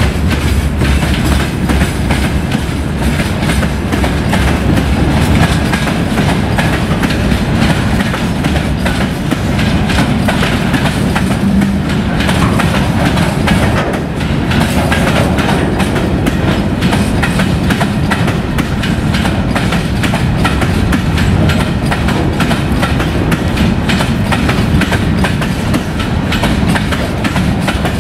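Freight train wagons, boxcars and open gondolas, rolling past with the wheels clattering steadily over the rails.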